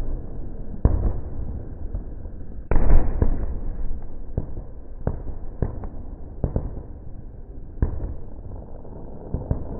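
Fireworks exploding: a run of sharp bangs every half second to a second over a constant rumble. The loudest is a longer burst about three seconds in.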